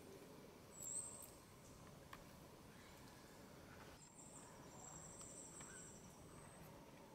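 Faint tropical forest ambience with a high, thin insect buzz that comes in briefly about a second in and again from about four to six seconds.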